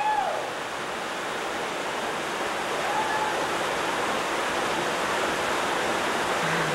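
Steady rushing noise of flowing water, growing slightly louder.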